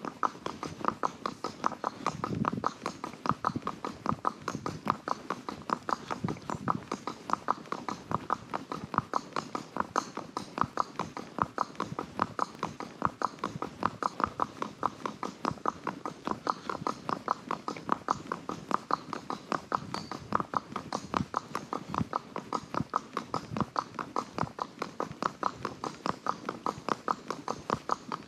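A ridden horse's hooves clip-clopping at a steady walk, about three or four hoofbeats a second in an even rhythm.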